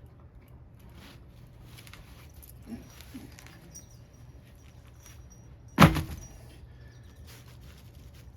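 Quiet handling noises with faint clicks, then one loud thump about six seconds in.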